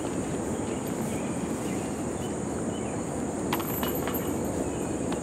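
Steady outdoor background noise with a constant high-pitched drone, and a few short sharp clicks a little past the middle.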